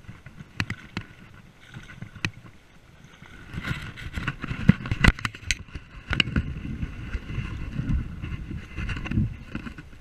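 Lake water moving in and out over broken shoreline ice, the small ice pieces clicking and tinkling against one another, heard from a camera at the waterline. It begins as scattered clicks, and from about a third of the way in it turns into a louder, rushing wash with a low rumble, a sound that resembles wind.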